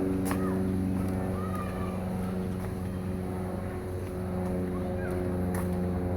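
A steady low machine hum, with several short bird calls and chirps over it from the rookery's wading birds.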